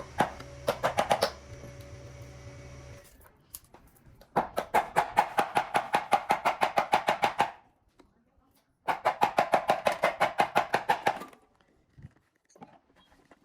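A machine or power tool hammering in two bursts of fast, evenly spaced knocks, about nine a second, the first about 3 s long and the second about 2.5 s. Before them a steady mechanical hum carries a few quick clicks and stops about 3 s in.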